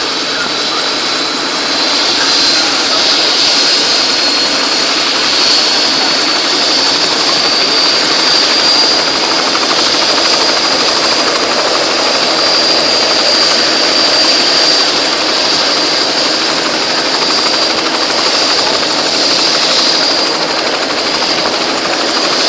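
Bell 206 JetRanger helicopter's Allison 250 turboshaft running up on the ground with its main rotor turning. A high turbine whine climbs slightly over the first several seconds and then holds steady over the rushing noise of the engine and rotor.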